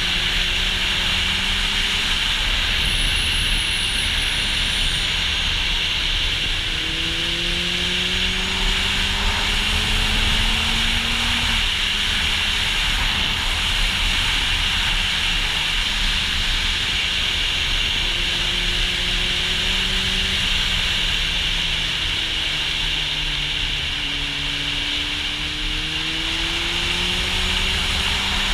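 Kawasaki Z800e inline-four engine with an Akrapovic exhaust pulling through the revs, its pitch climbing in several long sweeps and dropping back between them, under steady loud wind noise on the camera microphone.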